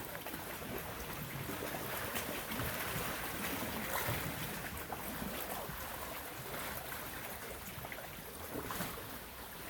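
Steady rushing noise of coastal wind and sea surf, swelling slightly a few seconds in.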